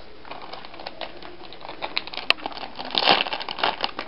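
Foil blind bag crinkling and crackling as hands tear it open, with a dense burst of rustling about three seconds in and a sharp click just before it.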